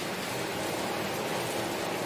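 Steady rain, an even hiss of falling water with no single drops standing out.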